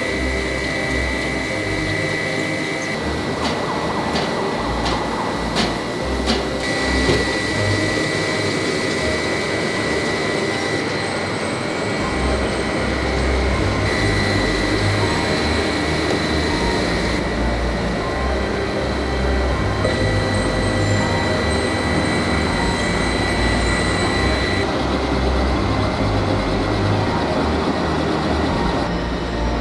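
Factory machinery noise from a heavy forging and machining plant: a steady high whine over a dense rumbling hiss, changing abruptly several times, with a few sharp clicks about four to six seconds in.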